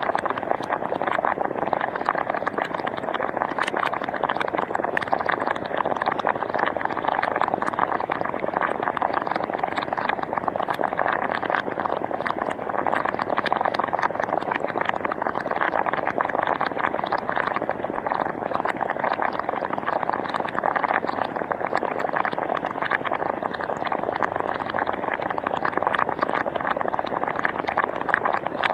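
Hot spring water bubbling steadily, a dense mass of small rapid bubble pops.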